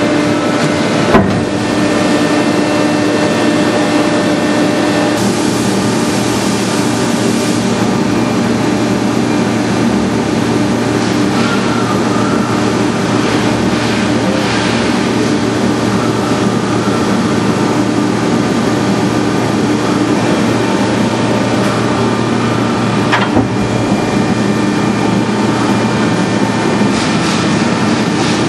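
Marathon horizontal baler running: its hydraulic power unit, driven by a 50 hp three-phase electric motor, gives a loud steady hum while the baler cycles. A sharp knock comes about a second in, and a lighter one later on.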